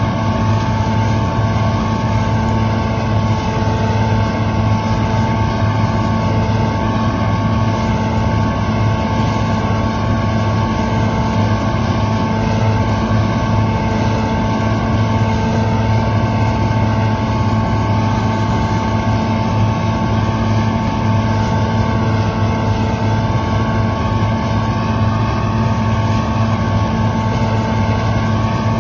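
Claas Lexion combine harvester running steadily, a continuous engine and machinery hum that holds the same pitch throughout.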